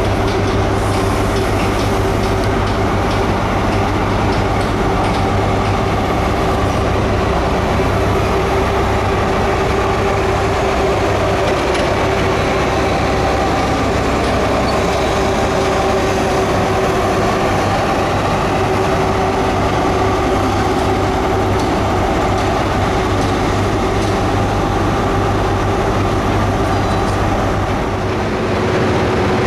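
Grand Central HST's class 43 diesel power car running under power: a loud, steady engine note with a held tone over it as the train moves through the station.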